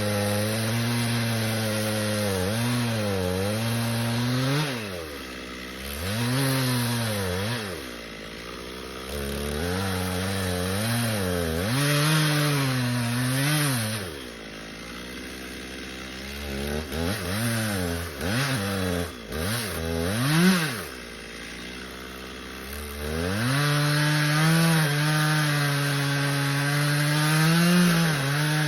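Stihl two-stroke chainsaw cutting into a black walnut trunk. Its engine pitch sags again and again under the load of the cut and climbs back as the saw is worked, with a run of quick revs about two-thirds of the way through.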